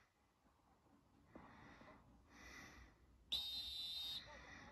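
A coach's whistle blown once, a single steady shrill blast of about a second near the end, heard through a laptop's speaker. It is the whistle that signals the players to break out and play.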